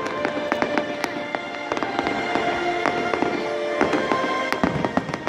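Fireworks going off in a rapid, irregular series of bangs and crackling pops, over music playing.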